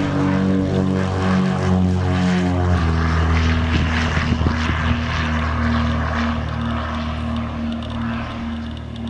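Embraer EMB-810C Seneca II twin-engine piston airplane at takeoff power, lifting off and climbing away. The engine-and-propeller drone drops in pitch about three seconds in as it passes, then holds steady with a regular pulsing and fades slightly near the end.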